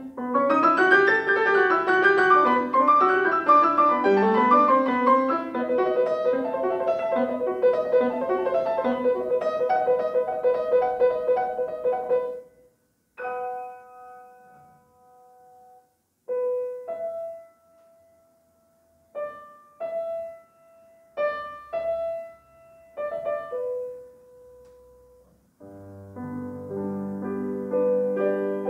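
Solo classical piece on a grand piano: a quick, dense run of notes, then from about twelve seconds in sparse single notes and short chords separated by silences, and near the end fuller playing returns with low bass notes.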